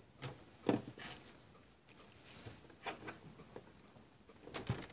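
Faint, scattered rustling and tapping of fingers pressing a replacement adhesive cutting strip flat and handling its plastic strip and backing, in short scratches a few times across the stretch, the loudest under a second in and near the end.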